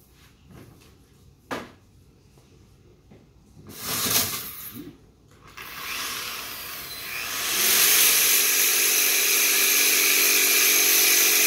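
Harbor Freight variable-speed car buffer fitted with a 40-grit floor-edger sanding disc. After a couple of knocks as it is picked up, the motor starts about six seconds in. From about eight seconds in the disc sands down a knot on a wooden beam: a loud, steady grinding over a steady motor hum.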